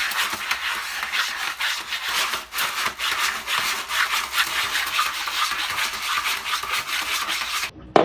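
Rapid, rhythmic scratching, several strokes a second, stopping abruptly near the end.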